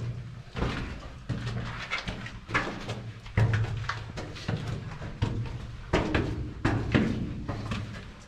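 Footsteps climbing a steep mountain path, a thump with each step about once a second.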